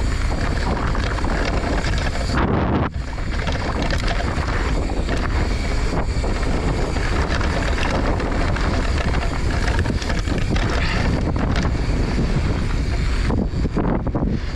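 Mountain bike riding down a dirt trail, with steady wind rush on the action camera's microphone over tyre noise and frequent clicks and rattles from the bike on rough ground.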